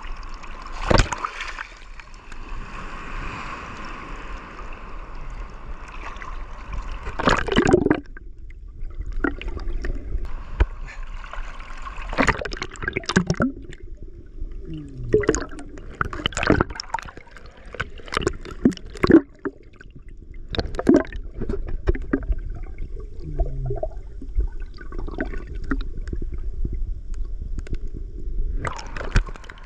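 Surf washing around a wader in shallow sea water. About eight seconds in the sound turns muffled, as heard by a camera held under the water, with gurgling, sloshing and frequent knocks and splashes. Near the end the open surf sound returns as the camera comes back up.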